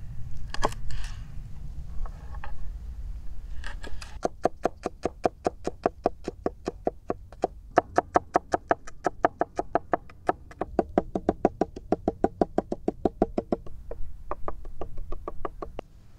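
Kitchen knife chopping garlic on a wooden cutting board. A few separate slicing knocks come first, then about ten seconds of rapid, even chops at around six a second, a brief pause, and a few more chops near the end.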